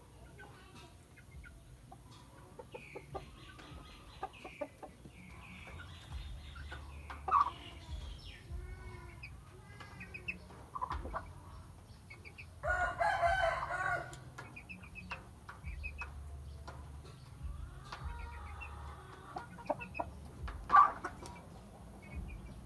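Rooster clucking, with one loud crow of about a second and a half a little past halfway, among short high chirps.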